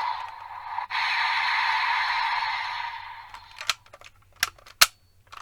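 Electronic sound effect from a Kamen Rider Geats DX Desire Driver toy belt, played through its small tinny speaker and fading out about three seconds in. It is followed by several sharp plastic clicks as the raise buckles are handled.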